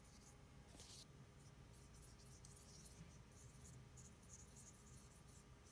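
Faint, scattered swishes of a watercolor paintbrush stroking across paper, over quiet room tone.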